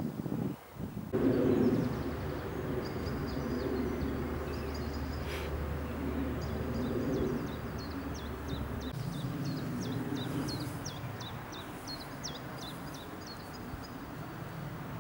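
Outdoor ambience: small songbirds chirping and singing in quick repeated high notes, over a steady low rumble that eases about nine seconds in.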